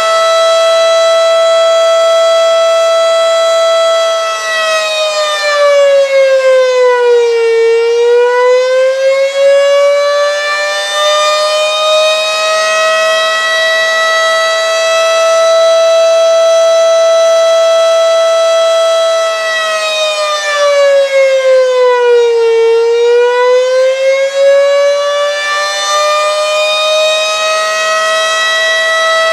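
Federal Signal Model 5 outdoor warning siren sounding the attack signal: a steady wail that twice sags in pitch and climbs back up. It sounds rough and weak, which the owner puts down to an underpowered VFD driving the siren's motor, not to a bad motor.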